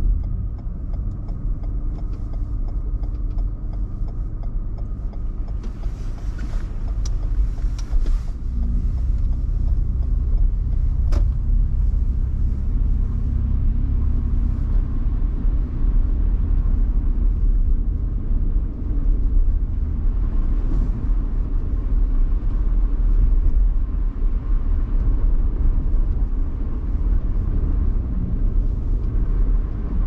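Car driving: a steady low rumble of engine and road noise that grows a little louder about a quarter of the way in, with a few faint clicks and a sharp tick about a third of the way in.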